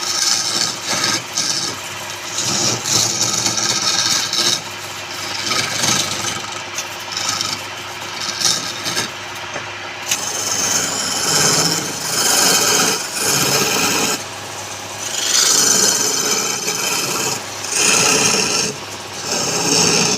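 Wood being cut or scraped on a woodturning lathe: a rasping, scraping noise in repeated strokes that swell and fade every second or two.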